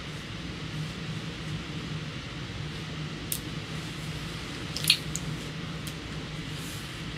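Steady hiss with a low hum underneath, broken by a few short sharp clicks, the loudest about five seconds in.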